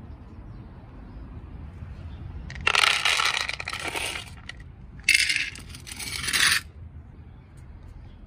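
Dry cat kibble poured into a plastic container: two rattling pours of about a second and a half each, the second starting about five seconds in.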